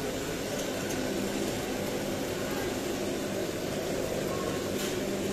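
Zirvak of meat, carrots and broth simmering in a cast-iron kazan, a steady bubbling hiss.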